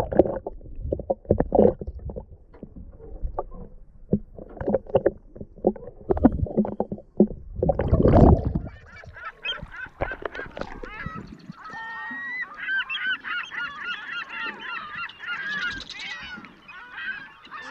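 Muffled sloshing and knocking of water, heard underwater. About nine seconds in, a flock of seabirds starts calling, many short overlapping calls at once.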